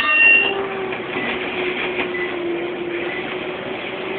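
Scania OmniCity bus heard from inside the passenger saloon while on the move: its rear-mounted diesel and driveline give a steady whine over interior rattle and road noise. A short ringing ding sounds right at the start.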